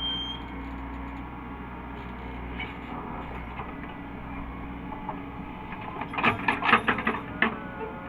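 Caterpillar 307E2 mini excavator's diesel engine running steadily, with a quick cluster of sharp knocks and clanks about six seconds in.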